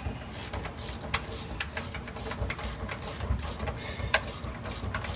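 Irregular sharp metallic clicks and scrapes, a few a second, as a bolt is worked by hand into a leaf-spring mounting hole in a Ford Mustang's chassis that is clogged with body putty.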